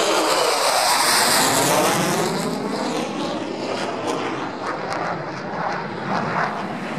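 Lockheed Martin F-35A fighter's F135 turbofan engine making a loud jet roar as it passes low overhead. The roar is at its loudest in the first two seconds, then fades as the jet moves away.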